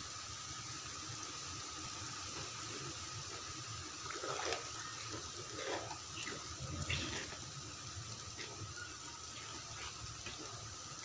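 Spoon stirring a thin coconut-milk gravy in a clay pot: soft liquid sloshing with a few light scrapes of the spoon against the pot, over a steady faint hiss.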